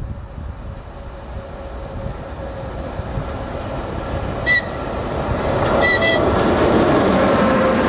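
A ChS200 electric locomotive approaching with a rising rumble of wheels on rail, sounding short, high-pitched signal toots: one about four and a half seconds in, then two close together about a second later.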